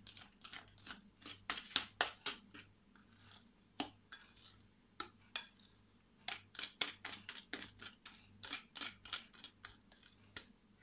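Wire hand whisk beating cupcake batter in a glass bowl, the wires clicking and scraping against the glass in quick runs of strokes, with brief pauses about three seconds in and again near six seconds.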